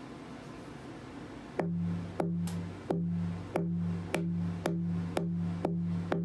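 Tap-testing a handmade acoustic guitar's braced Western red cedar top on its rim: nine even taps about two a second, starting a second and a half in, each ringing on at the same low pitch. The ring is the body's resonance, which the builder judges to sound good.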